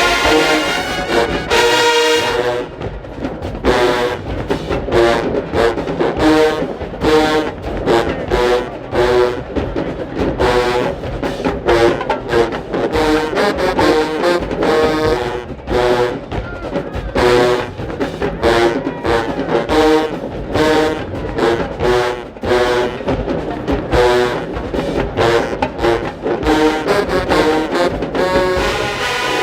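HBCU-style marching band playing a brass arrangement of a hip-hop song: trombones, trumpets and low brass blaring a repeated riff over driving drumline percussion.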